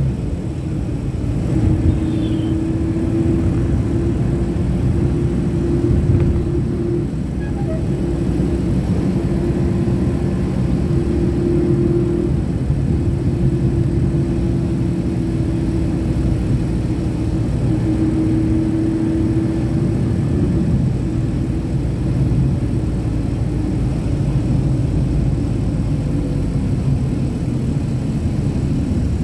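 Steady engine drone and road rumble heard from inside a moving vehicle. A humming tone rises above it in stretches and then fades.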